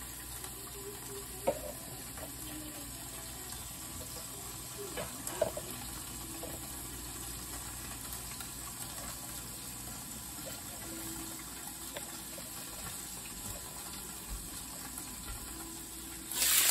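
Boiled, chilled pelmeni frying in vegetable oil and butter in a covered pan: a steady, muffled sizzle under the glass lid, with a few sharp pops. Near the end the lid is lifted and the sizzling suddenly gets much louder.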